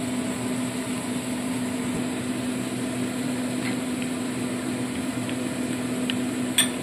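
A steady mechanical hum with a constant low tone, with a few light clinks of a metal spoon against a glass bowl as spice powders are stirred with water into a paste; the sharpest clink comes near the end.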